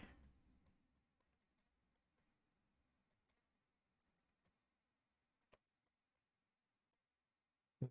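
Near silence with about half a dozen faint, scattered clicks from a computer mouse and keyboard, the loudest about five and a half seconds in.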